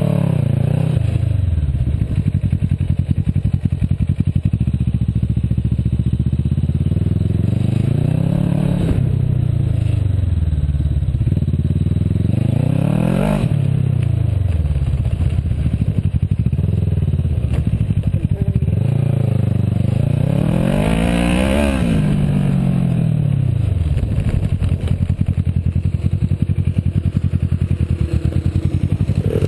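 Kawasaki Versys 650 parallel-twin engine, heard from the rider's seat, revving up and dropping back in long swells as the bike accelerates and slows around the cones on grass. It settles to a low, steady run for the last few seconds.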